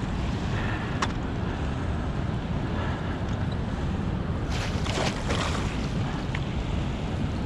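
Steady rush of turbulent tailwater below a lake spillway, with wind buffeting the microphone. A sharp click comes about a second in, and a brief louder burst of noise about five seconds in.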